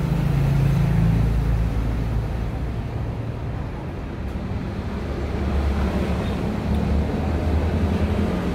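Motor-vehicle engines running, a steady low rumble that swells a little in the second half.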